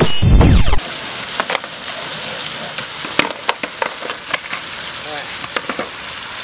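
A loud low boom lasting under a second, then skateboard wheels rolling on asphalt: a steady crackling hiss with scattered sharp clicks.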